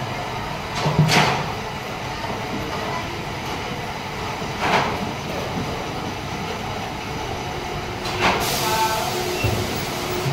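Steady hum of factory machinery and ventilation on a panel assembly floor, with a couple of short clatters and a burst of hissing about eight seconds in.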